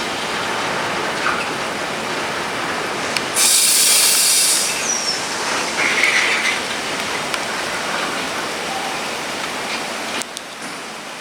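Train moving through a station on wet rails, with steady running noise. A loud burst of hiss comes about three seconds in and lasts over a second, and a short squeal follows about six seconds in.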